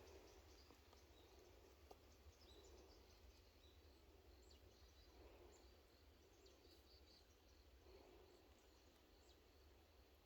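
Near silence: faint forest ambience with a few faint, high bird chirps scattered through it.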